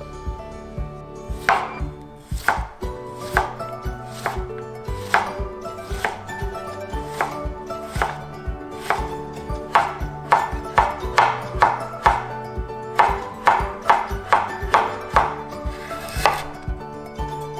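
Chef's knife cutting vegetables on a wooden cutting board: a series of knife knocks against the board, irregular at first and quicker, about two to three a second, in the middle and later part. The knife moves from a pale leafy vegetable to carrot near the end.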